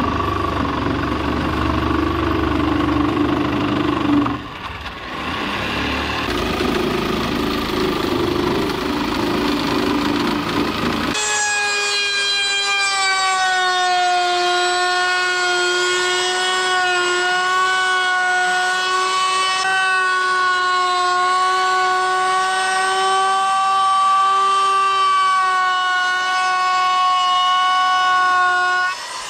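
A jigsaw cutting through a wooden board, with a brief pause about four seconds in. About eleven seconds in, a router starts and runs with a steady high whine as it rounds over the board's edge.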